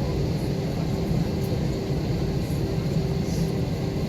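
Airbus A321 airliner heard from inside the cabin: a steady low rumble of engines and airframe, with a hum that pulses on and off a few times a second.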